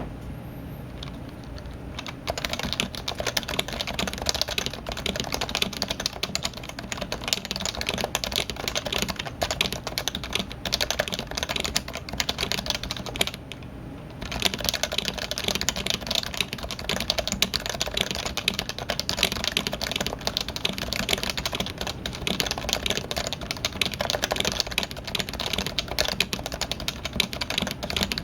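Typing on a Topre keyboard with electrostatic capacitive rubber-dome switches: a fast, dense run of keystrokes that begins about two seconds in, stops briefly about halfway through, then carries on.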